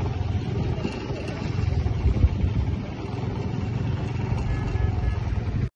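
Wind buffeting the phone's microphone outdoors, a steady low rumble that cuts off suddenly near the end.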